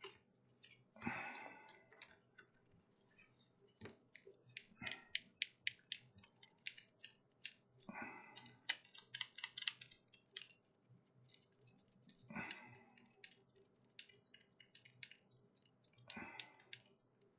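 Nut being turned off the through-bolt of an old selenium rectifier stack by hand: runs of faint, quick metallic ticks and clicks, with a few short scraping rustles as the metal plates are handled.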